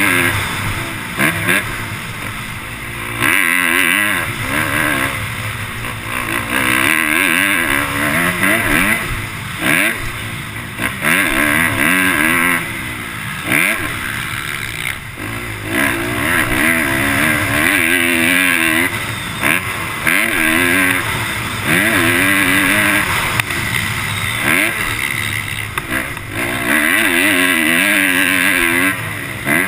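Motocross dirt bike engine revving up and dropping back over and over as the rider accelerates, shifts and rolls off around the track. It is heard from a helmet-mounted camera.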